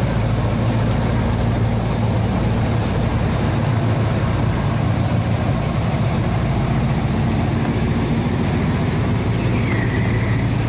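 Square-body Chevrolet/GMC pickup truck engine idling steadily at low revs.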